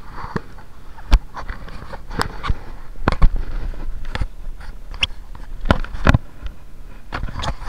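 Mountain bike rolling on a paved lane, heard through a loosely mounted action camera: irregular sharp knocks and rattles, a dozen or so, over a steady low rumble of tyres and wind. The camera has tipped down in its mount, so the knocks are it and the bike rattling over bumps.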